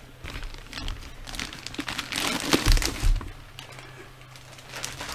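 Plastic packaging crinkling and rustling in irregular handfuls as a boxed cosplay helmet is unwrapped and handled, with a couple of dull bumps about two and a half to three seconds in.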